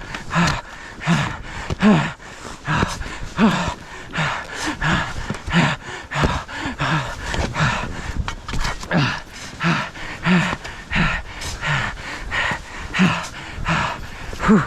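A man panting hard and fast from the effort of digging in avalanche snow, with about three short, voiced breaths every two seconds.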